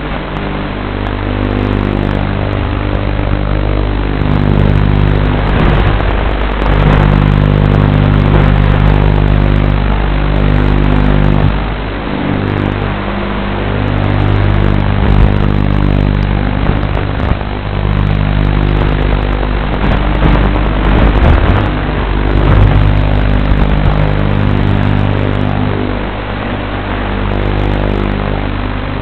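Martian II 250 FPV quadcopter's brushless motors and propellers in flight, heard from onboard: a steady buzz under a whir that swells and dips every few seconds with the throttle.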